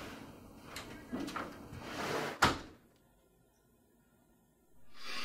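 Rustling and a few light knocks, then a door slams shut with one sharp bang about two and a half seconds in. A faint hiss swells up near the end.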